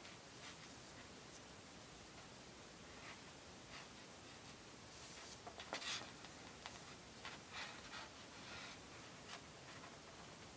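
Faint rustling and scratching of cords being handled and pulled through a knot by hand, in short scattered bursts that are busiest a little past halfway, over a steady hiss.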